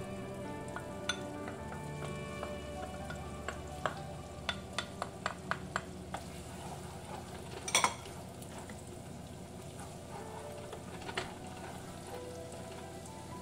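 Butter sizzling in a nonstick frying pan while a wooden spatula stirs it, with a run of sharp taps of the spatula about four to six seconds in. Near eight seconds a loud clatter as minced garlic is scraped from a bowl into the pan, then the garlic sizzles in the butter as it is stirred.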